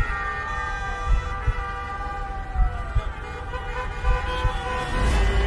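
City street traffic with a siren wailing, its pitch sliding down, over a mix of steady tones and a few low thuds.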